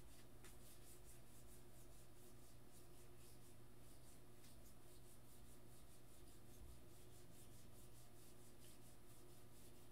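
Faint rustle and flicking of baseball trading cards being thumbed off a stack one at a time, in an irregular run of soft ticks over a low steady hum.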